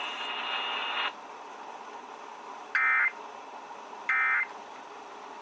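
Emergency Alert System SAME digital data bursts over broadcast radio: short, identical, buzzy warbling tone bursts about a third of a second long, spaced a little over a second apart, with the third arriving at the very end. Bursts this short in a group of three are the end-of-message code that closes the warning. Light radio hiss fills the gaps, a little louder in the first second.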